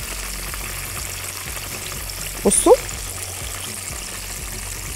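Breaded chicken cutlets deep-frying in a pan of hot oil: a steady sizzle.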